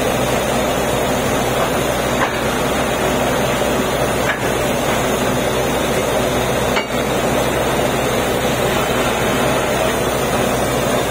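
Truck-mounted borewell drilling rig running: a steady engine hum under a constant hiss, with a few brief clicks.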